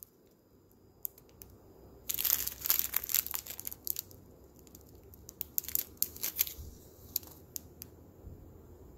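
Small clear plastic bags of square diamond-painting drills crinkling as they are handled and pressed between the fingers. There is a cluster of crinkling about two seconds in, then a few scattered crackles.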